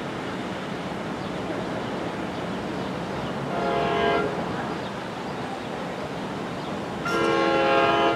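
NJ Transit train horn sounding as the train approaches: a short blast about halfway through, then a longer blast starting near the end, each a chord of several steady tones over a steady background hiss.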